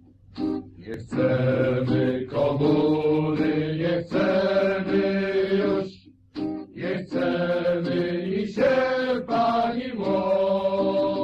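A slow song: a voice singing long held notes over acoustic guitar, in phrases a couple of seconds long.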